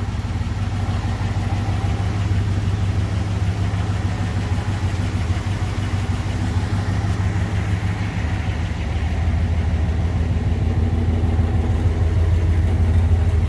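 1957 Ford Thunderbird's V8 engine idling steadily while the car creeps slowly forward, growing a little louder in the last few seconds.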